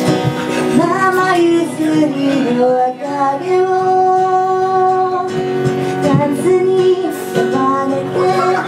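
Live pop song: female voices singing a melody over guitar accompaniment, holding one long note about three seconds in.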